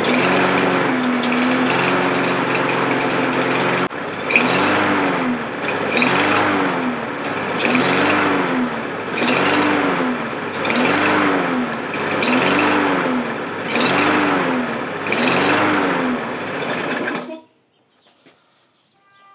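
Briggs & Stratton 625EX single-cylinder push-mower engine running and surging. After a few fairly steady seconds, its speed rises and falls in a regular up-and-down about every second and a half. It shuts off suddenly near the end.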